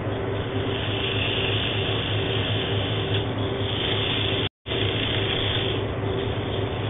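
Wood lathe running with sandpaper held against the spinning hardwood blank: a steady motor hum under a hissing sanding rasp that swells and eases. The slight change in the rhythm of the sanding is the torn grain passing under the paper. The sound cuts out for an instant about halfway through.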